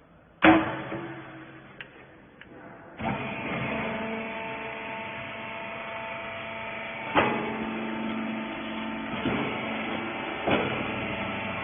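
A loud metallic clank, then about three seconds in a machine starts and runs with a steady hum, punctuated by three more clanks.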